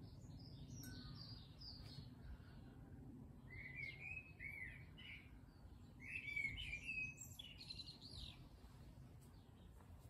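Garden songbirds singing short, varied warbling phrases, loudest about six to seven seconds in, over faint low background noise.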